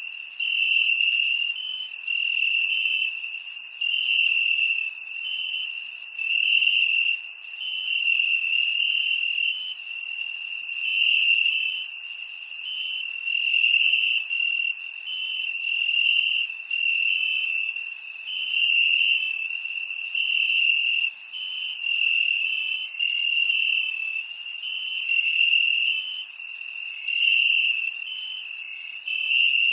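Crickets chirping in chorus: a steady, high-pitched pulsing trill that swells and fades every second or two.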